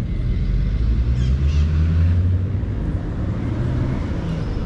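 Steady low rumble of nearby road traffic, with one vehicle's engine audibly rising in pitch as it accelerates about a second in.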